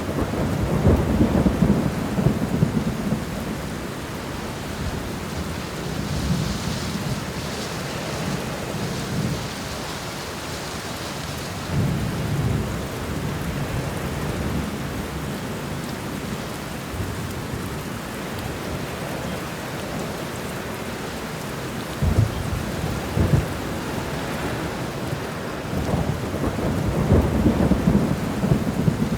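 Steady rain pattering on an apartment window during a thunderstorm, with deep rumbles of thunder swelling up several times.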